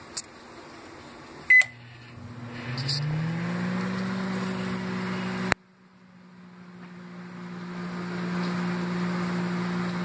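Panasonic Genius Sensor 1200W microwave oven: a single beep about a second and a half in, then the oven starts running with a hum that rises in pitch as it comes up to speed and then holds steady. A sharp click a little past halfway, after which the hum drops away briefly and builds back up to a steady run.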